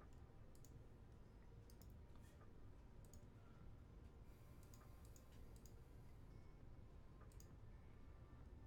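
Faint computer mouse clicks, scattered irregularly, over near-silent room tone.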